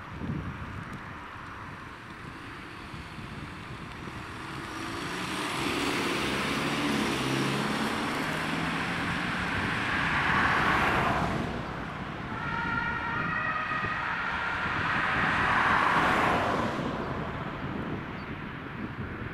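Road traffic going past, swelling twice, with a fire-service van's two-tone siren heard briefly in the middle, its alternating notes cutting through.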